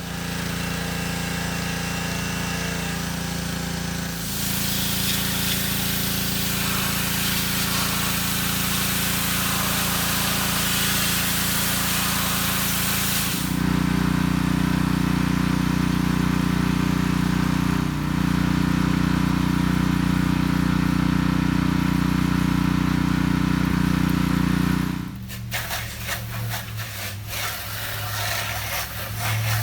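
Small gasoline engine of yard-work equipment running steadily, with a loud hiss over it from about 4 to 13 seconds. The engine note and loudness change suddenly near 13 and 25 seconds, as one clip gives way to another.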